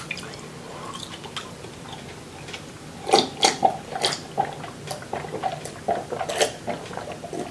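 A man gulping down a drink from a plastic cup: a run of swallows, about three a second, starting about three seconds in.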